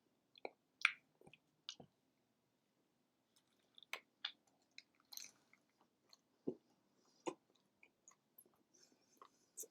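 A person chewing and biting into a bacon cheeseburger close to the microphone: faint, irregular mouth clicks and smacks, with a short pause about two seconds in.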